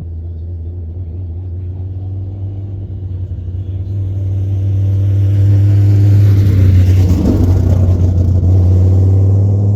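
A car engine running at a steady pitch, growing louder as it approaches over several seconds and loudest about seven seconds in, as it passes close by.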